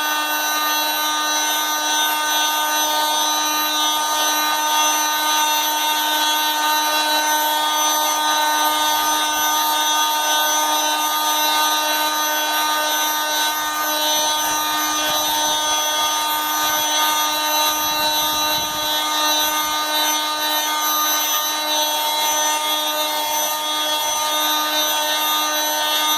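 JCB MC300 oscillating multi-tool running steadily with a sanding pad fitted, a loud, even buzzing whine.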